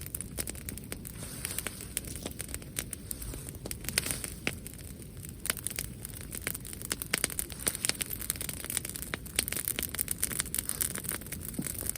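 Wood fire crackling, with many irregular sharp pops and snaps.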